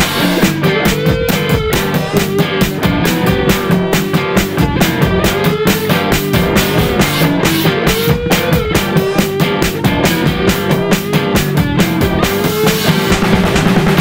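Lo-fi synth-punk instrumental: a fast, steady drum beat under bass, cheap guitar and synth, with a lead line that bends up and down in pitch.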